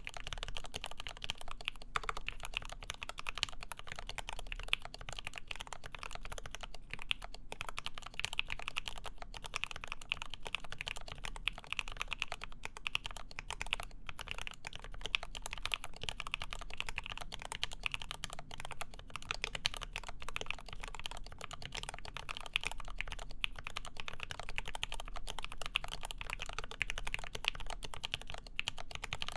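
Continuous fast typing on a Lin Works EM7 mechanical keyboard with lubed ZealPC Tealios linear switches on a full aluminum plate and GMK keycaps: a dense, even run of keystroke clacks.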